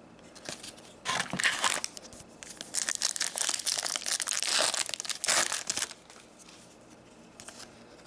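A foil Upper Deck Series 2 hockey card pack being crinkled and torn open by hand: a short burst of crackling about a second in, then about three seconds of louder tearing and crinkling in the middle.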